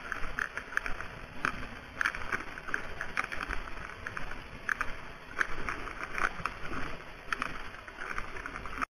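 A polar bear walking over snow-covered sea ice, heard through the camera collar on its neck: irregular crunching of its paws in the snow, a few steps a second, over a steady low rush.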